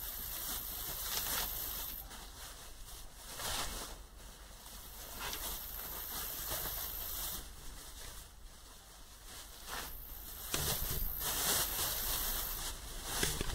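Rustling of leafy vegetable tops and crinkling of a black plastic garbage bag as the greens are pushed into it by hand, in irregular bursts, louder near the end when the bag itself is handled.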